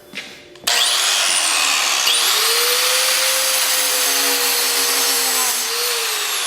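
Angle grinder switched on under a second in, running loud with a high whine that shifts in pitch as its disc grinds against the iPhone 6's metal body.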